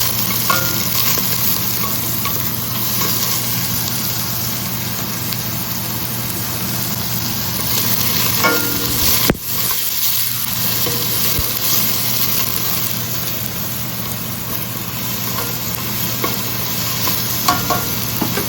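Diced onion sizzling as it sautés in a hot pan, with a utensil stirring and scraping now and then. A steady low hum runs underneath, and there is one sharp click about halfway through.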